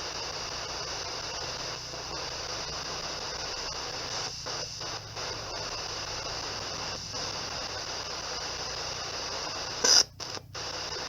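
S-Box ghost box radio scanner sweeping the FM band in reverse: steady radio static with a few brief dropouts, and a short louder burst about ten seconds in.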